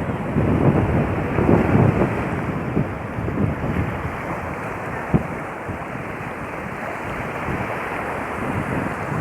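Sea waves washing on a beach, with wind gusting across the microphone in low rumbles, heaviest in the first two seconds. A brief sharp knock about five seconds in.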